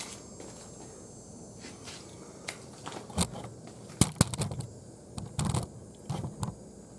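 Plastic cover panel on a riding mower being worked free and moved, giving a scatter of sharp clicks, knocks and clatter from about three seconds in, the loudest being two taps about four seconds in.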